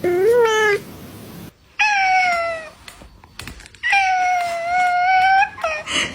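Cats meowing: a short meow, then a falling meow, then a longer drawn-out meow.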